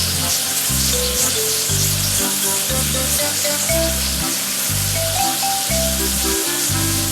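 Steady hiss of a pressure-washer water spray, heard over background music with a regular bass line.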